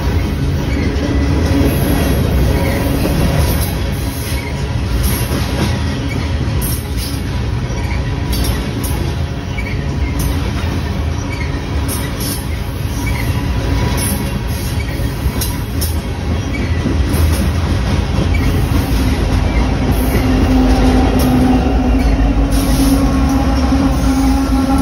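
Freight train cars rolling past close by, a steady loud rumble of wheels on rail with repeated clicks. Near the end a trailing BNSF diesel locomotive comes by and its engine hum grows louder.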